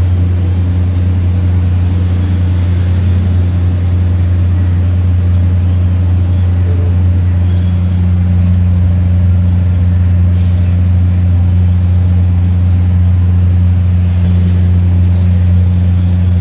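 Loud, steady low mechanical hum that does not change throughout.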